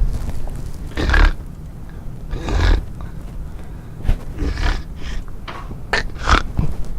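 A man deliberately snoring loud and exaggerated as a prank: four separate snores about a second and a half apart, over a steady low rumble.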